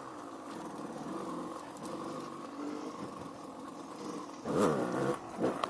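Dirt bike engine running at low speed, with a short louder rev about four and a half seconds in.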